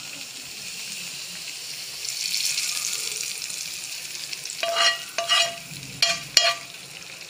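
A tadka of garlic fried in ghee is poured over hot gravy and sizzles with a steady hiss for a couple of seconds. Then a spoon scrapes the last garlic out of the pan and knocks against the pans about four times, each knock a short ringing clink.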